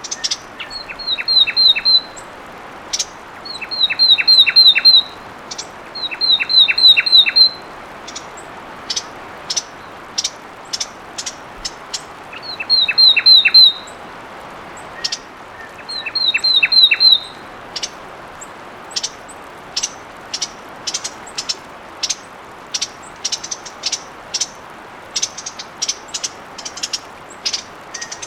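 Fulvous wren singing: five short loud phrases, each a quick trill over a run of falling whistled notes, with pauses between. Short, sharp high notes are scattered throughout.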